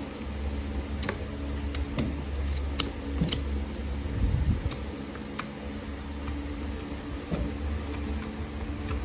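Farrier's hand tools working a horse's hoof on a hoof stand: scattered sharp clicks and light scrapes, several in the first few seconds and a few more later, over a steady low hum.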